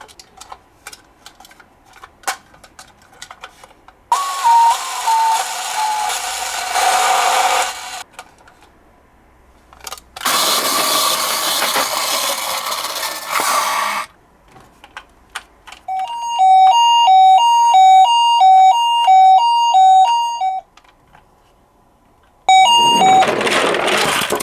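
Toy emergency-vehicle minicars playing their electronic siren sounds one after another, with light plastic clicks before the first. A buzzy sound falling in pitch and a second buzzy sound come first. Then comes the loudest part, an alternating two-tone hi-lo siren of the Japanese ambulance type, lasting about four seconds, and another buzzy sound starts near the end.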